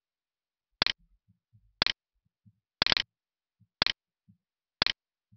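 Clock ticking steadily, one sharp tick a second, each tick a quick cluster of about three clicks, with a few faint low thumps between ticks.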